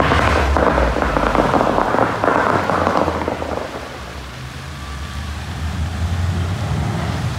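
Musical-fountain water jets shooting up and their spray falling back: a loud rushing hiss for the first three seconds or so that fades away by about four seconds in, over the low bass of the show's music.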